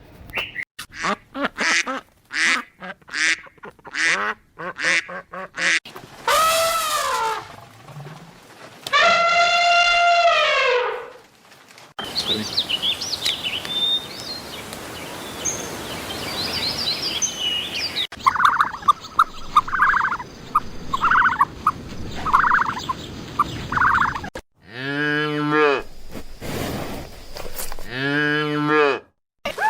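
A run of farm animal sounds: quick clicking or pecking for the first few seconds, then two long rising-and-falling calls, a stretch of short repeated calls, and two deeper drawn-out calls near the end.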